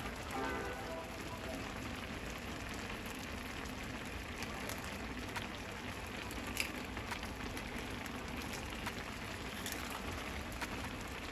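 Ramen cooking in a pan of boiling water on the stove: a steady hiss with a few light clicks.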